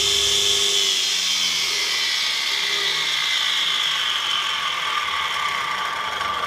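A machine or power tool running continuously with a high whine that slowly falls in pitch.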